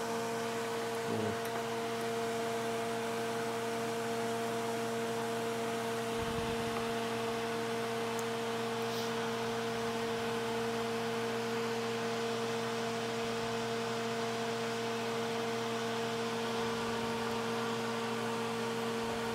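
Steady electrical hum of a running kitchen appliance motor, with a faint hiss under it and a few soft brief knocks.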